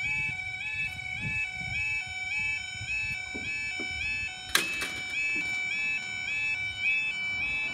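Level crossing yodel alarm: a two-tone warning that steps up and down about twice a second, sounding while the barriers lower across the road. A single sharp knock stands out about four and a half seconds in.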